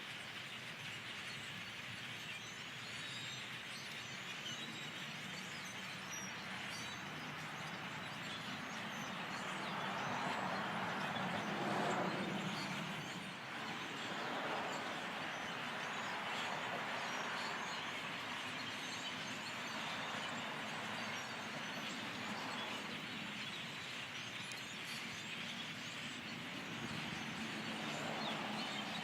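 A large flock of birds chattering and calling all at once, a continuous dense wash of chirps that swells louder around the middle.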